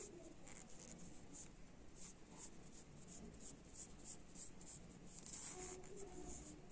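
Faint, irregular scratchy rubbing of yarn and fingers sliding along a yarn-wrapped metal skewer as the curled yarn is worked off it.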